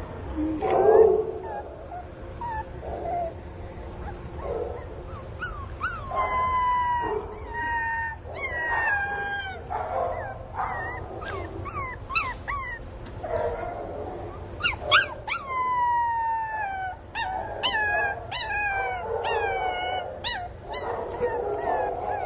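A pinscher puppy crying for its mother: repeated high-pitched whines and yelps, each falling in pitch. They come in quick succession from about five seconds in, after a few shorter, lower cries.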